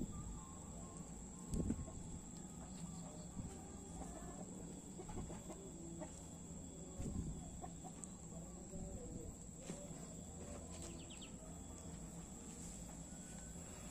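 Fowl clucking in short, wavering calls over a steady low hum and a faint high whine, with a thump at the start and another just under two seconds in.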